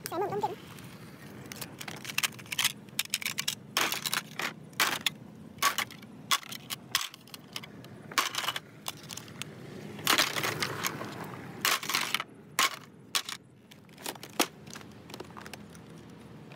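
Irregular crunching and crackling with many sharp clicks, as of brittle material being handled.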